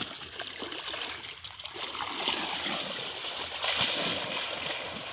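A dog splashing through a shallow muddy stream, its legs churning the water, loudest about two seconds in and again near four seconds.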